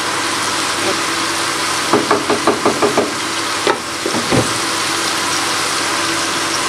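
Sliced onions sizzling steadily in hot sunflower oil in a pan, just beginning to soften. About two seconds in comes a quick run of light knocks, with one more knock near four seconds.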